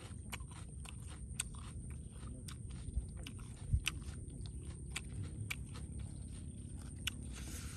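A man chewing raw fish and fresh red chili, with an irregular run of small crisp clicks and crunches.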